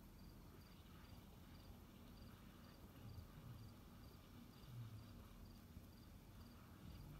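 Near silence with a faint cricket chirping steadily, about two chirps a second, over a low background hum of night air.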